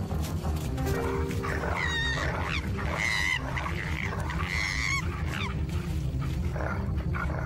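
Dogs attacking a koala: a dense growling and snarling scuffle, with several high, wavering cries about two, three and five seconds in.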